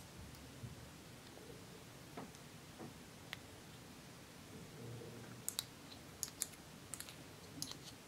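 Thin metal tool scraping and tapping inside a small cosmetics jar, digging out silver makeup: scattered light clicks that come more often in the second half.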